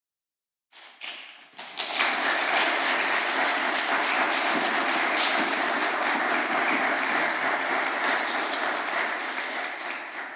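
Audience applauding: a few scattered claps about a second in, swelling into full steady applause that starts to die away at the very end.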